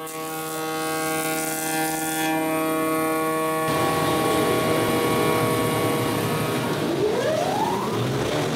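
Steady mechanical hum with several held tones. It changes abruptly to a rougher noise partway through, and a rising whine comes near the end.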